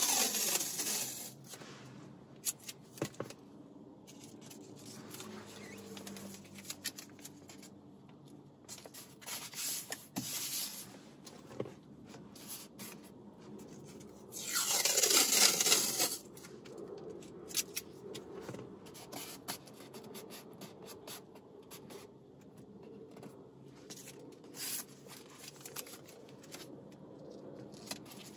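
Adhesive tape being pulled off the roll twice, a loud ripping screech whose pitch falls, once at the start and once about 15 seconds in, lasting a second or so each. Between them, light rubbing and small taps as the tape is pressed along the edge of a dashboard panel.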